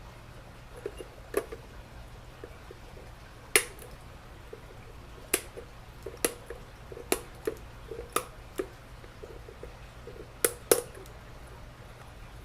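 Scattered sharp clicks and knocks of a hard plastic filter box being worked on and trimmed so it sits flush, about a dozen at uneven intervals, the loudest a few seconds in and near the end, over a steady low hum.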